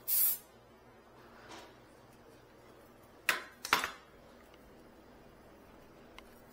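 A short hiss of refrigerant gas escaping at a charging hose fitting, then two or three sharp metallic clicks and taps from handling the fittings and tools, over a quiet steady background.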